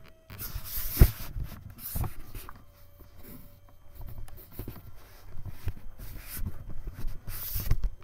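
Camera handling noise: scraping and rustling on the microphone as it is moved about in grass and against hair, in irregular bursts with a few sharp knocks, the loudest about a second in and near the end.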